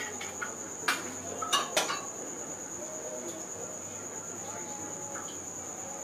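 A few light knocks and clinks of kitchen dishes and utensils, three short ones in the first two seconds, over a steady high-pitched trill that runs throughout.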